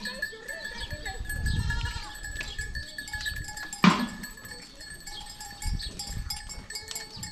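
Goats bleating while the bells on their collars ring steadily, with a single sharp knock about four seconds in.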